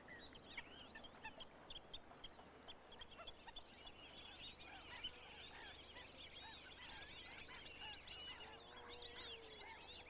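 Faint chorus of many birds calling at once: a dense scatter of short, high chirping calls. A lower call is held for about a second near the end.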